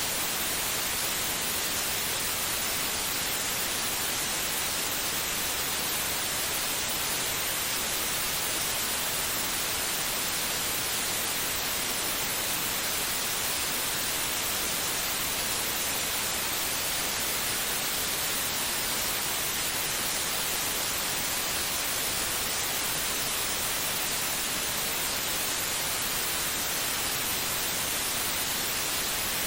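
Steady white noise: an even, unchanging hiss with no rhythm or breaks, used as a sleep aid to calm a baby.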